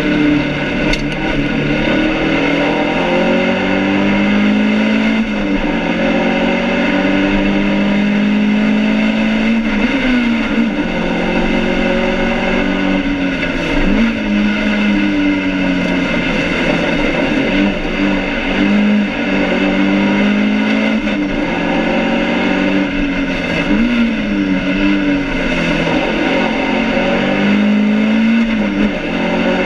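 BMW 2002 race car's four-cylinder engine heard from inside the cabin at full racing pace, its pitch climbing and then dropping sharply at each gear change, several times, over road and wind noise. The driver is short-shifting to spare an overheating engine.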